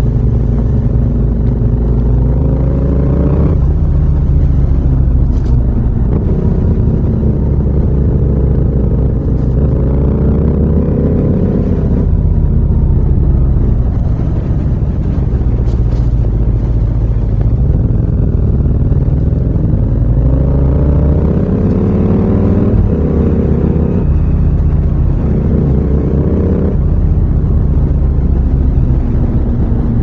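Yamaha MT-07's parallel-twin engine through an aftermarket muffler with a nearly 4-inch outlet, running with a deep rumble while riding. The pitch rises several times under acceleration and drops back at each gear change or roll-off.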